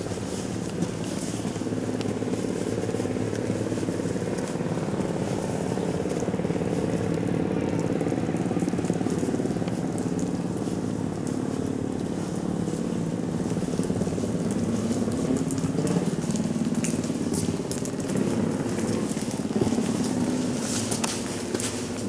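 A steady low mechanical hum of several pitches running throughout, with footsteps clicking near the end.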